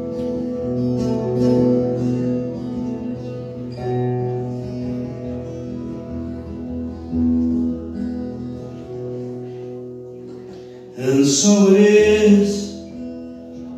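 Acoustic guitar playing sustained chords, joined about eleven seconds in by a man's voice singing loudly for a couple of seconds.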